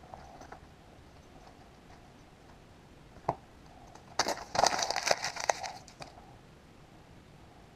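A sheet of notepad paper crumpled into a ball by hand: about two seconds of dense crinkling near the middle, with a single sharp click a second before it.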